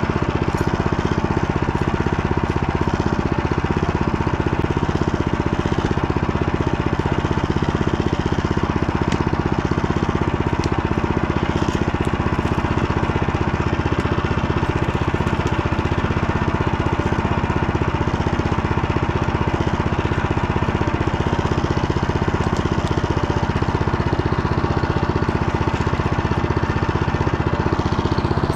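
Small Motor Sich engine running at a steady speed under way, with a fast, even firing beat that holds the same pitch throughout.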